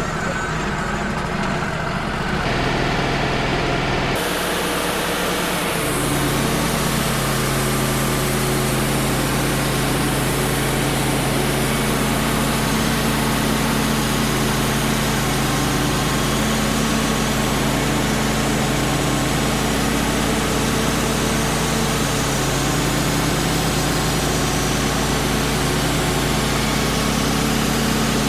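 Wood-Mizer LT35 HD portable sawmill running steadily while sawing an oak log. About four seconds in a broad hiss joins the engine, and around six seconds the engine note shifts and then holds steady.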